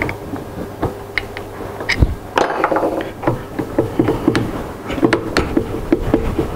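The clamp bolts on a CNC router's spindle mount being worked loose with a hand driver while the spindle is held and shifted in its mount. Scattered metal clicks and knocks, then from about three seconds in a quick run of small clicks, about five a second, over a steady hum.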